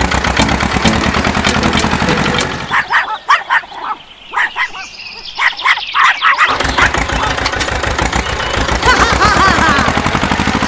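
A motor vehicle engine running steadily. It cuts out for about three seconds in the middle, where short bird-like chirps are heard, then comes back.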